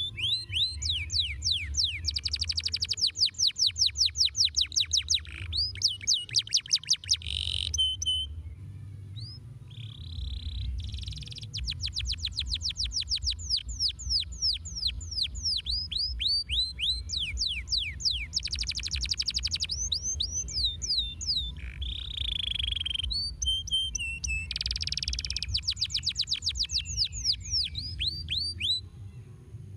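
Domestic canary singing: phrases of fast trills made of repeated downward-sweeping whistled notes, alternating with dense buzzing rolls, separated by short pauses.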